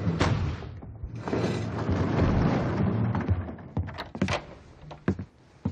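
A loud, dense noise with some music under it fades out over the first three seconds. Then a few sharp clicks and knocks follow as a door is opened.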